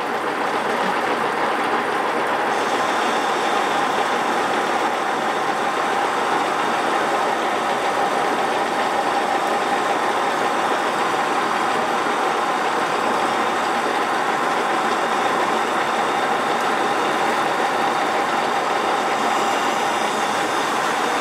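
Metal lathe running steadily while a tangential tool holder takes a 1 mm cut, peeling a continuous chip off the turning metal workpiece.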